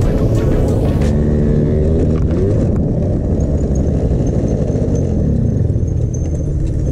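Honda Elite E scooter engine running under way, heard from on board, its pitch shifting between about one and a half and three seconds in, over steady wind noise on the microphone.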